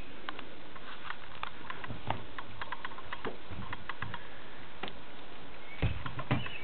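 Scattered light clicks and ticks with a few soft thumps, from footsteps and camera handling on a fiberglass sailboat deck, over a steady background hiss.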